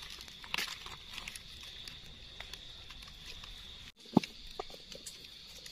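Faint rustling and crackling of dry leaf litter and twigs as a wild mushroom is handled on the forest floor, over a steady high-pitched drone. A sharper click sounds just after four seconds in.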